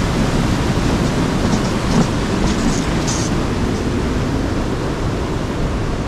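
A loud, steady rushing noise, with a few faint scuffs about two to three seconds in.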